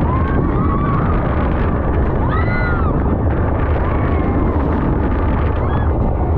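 Speedboat with triple 300 hp outboard motors running at speed, with a steady rumble and heavy wind buffeting the microphone. Short rising-and-falling tones cut through about two and a half seconds in.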